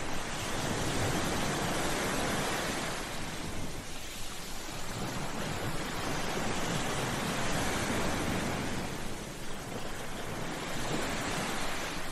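Ocean surf: waves breaking and washing on a shore, the rushing noise swelling and ebbing about every three to four seconds.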